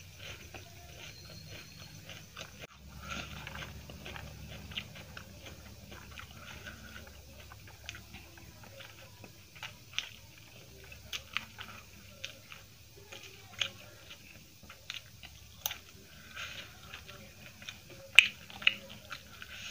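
Close-miked chewing and biting of a mouthful of rice, egg curry and raw cabbage leaf, with crunchy bites and scattered sharp wet mouth clicks, one louder click near the end.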